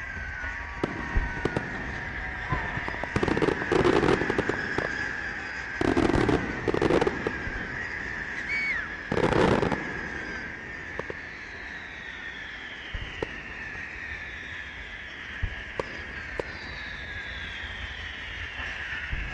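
Fireworks going off: three clusters of loud crackling bursts in the first half over a steady high whistle, then several whistles falling in pitch and scattered single pops.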